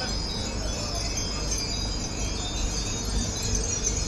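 A large display of Japanese furin wind chimes tinkling together, many small high rings overlapping, over a steady low rumble.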